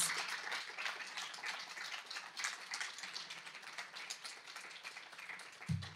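Audience applauding after a poem ends. The clapping is loudest at the start and slowly dies down.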